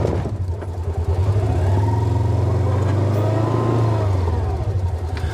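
SUV engine revving under load while it tries to drag treetops up a steep slope on a chain, which it fails to do. Its pitch rises and then falls over a couple of seconds above a steady low engine hum.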